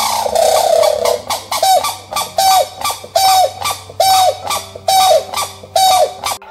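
Grey crowned crane calling: a run of about eight short, loud honks, roughly one a second, the first a little longer, over faint sustained background music.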